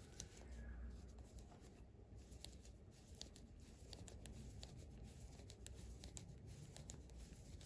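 Near silence, with faint, irregular light clicks and rustle from metal knitting needles and cotton yarn as stitches are knitted by hand.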